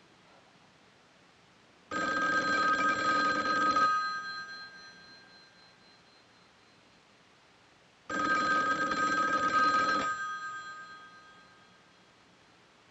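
Telephone bell ringing twice, each ring about two seconds long with about four seconds of silence between, the standard two-seconds-on, four-off ring cadence. Each ring rings on briefly as it fades after the bell stops.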